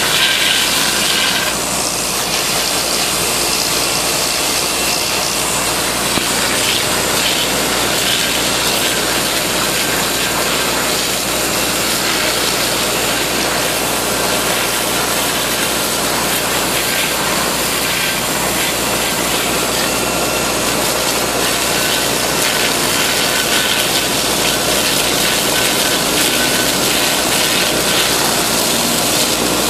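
High-pressure water jet washing the glass suspension insulators of a high-voltage line: a loud steady hissing spray over a running engine, with a dense crackle mixed in. The washing clears off dust and bird droppings that had made the insulators noisy with corona.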